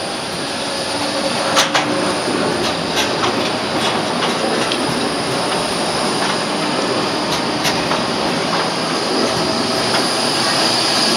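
A Stadler Tango low-floor tram passing close by at low speed. Its steel wheels roll steadily and click sharply several times over the track junction, and a high wheel squeal builds on the curve near the end.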